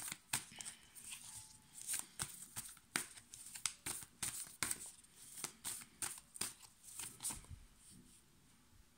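A deck of cards shuffled by hand: a run of quick, irregular light clicks and slides of cards against each other, dying away about a second before the end.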